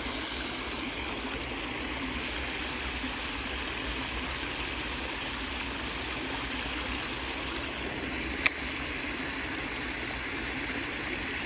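Water spilling over a small concrete step weir in an irrigation channel, a steady rushing. One sharp click about eight and a half seconds in.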